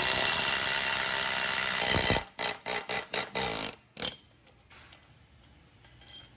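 Pneumatic air hammer running in one long burst of about two seconds, then a string of short bursts, stopping about four seconds in. It is driving the pinion out of a Toyota 7.5-inch clamshell front differential housing.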